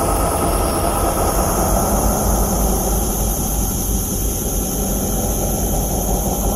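A steady, loud, low rumbling drone with a thin high hiss above it, easing slightly in level past the middle.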